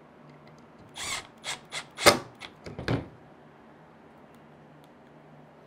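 Tool handling on a tabletop: a handful of sharp knocks and clunks in quick succession from about one to three seconds in, the loudest around two seconds, with a cordless driver and the metal stand plate being worked on and set down.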